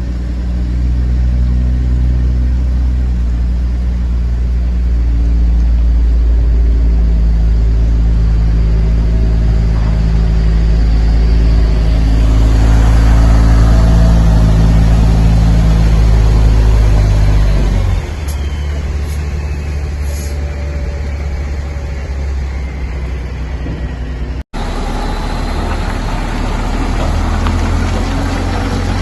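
A heavy vehicle's engine running steadily with a deep hum, growing a little louder before the hum drops away about two-thirds of the way in and gives way to a rougher, noisier rumble.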